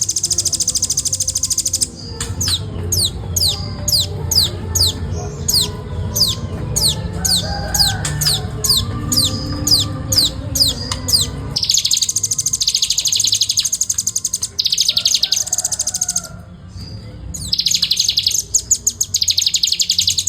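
Velvet-fronted nuthatch in full song: very fast, tight high trills, the continuous song bird keepers call ngebren, alternating with a long run of quick downward-sweeping whistled notes, about two a second.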